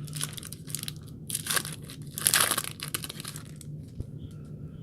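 Foil wrapper of a trading card pack crinkling and tearing as the pack is opened, in a run of rustles, the loudest about two and a half seconds in, dying away after about three and a half seconds.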